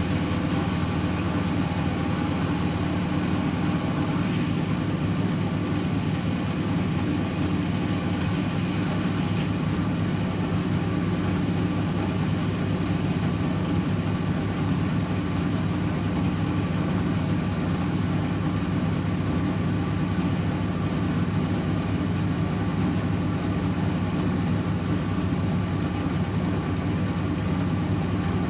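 Servis Automatic M3008B washing machine in its final spin at 800 rpm: a steady hum and whir from the drum and motor at full spin speed.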